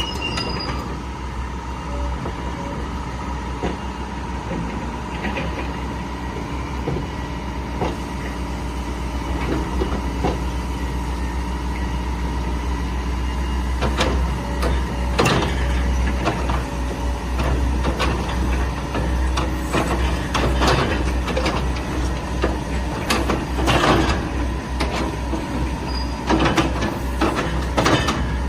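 Caterpillar 306E2 mini excavator's diesel engine running steadily, with repeated sharp clanks and knocks from the machine working, more frequent and louder in the second half.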